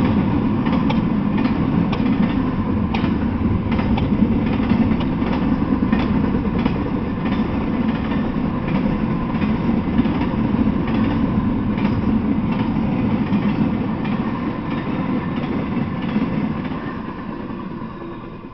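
Double-stack intermodal freight train rolling past: a steady rumble of the rail cars with irregular clicks and clanks, fading away over the last couple of seconds as the end of the train goes by.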